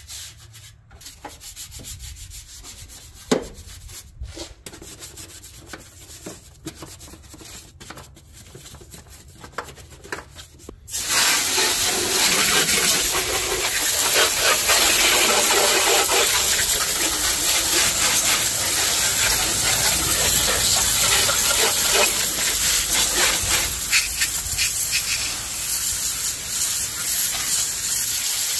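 Stiff brush scrubbing in an engine bay, uneven rubbing strokes with one sharp knock about three seconds in. About eleven seconds in, a garden hose spray nozzle opens with a sudden loud hiss of water spraying over the engine, which then runs on steadily.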